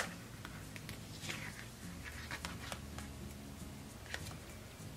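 Paper rustling and soft handling noises as sticker book pages are leafed through, with scattered faint ticks over a faint steady low hum. A single sharp click, the loudest sound, comes right at the start.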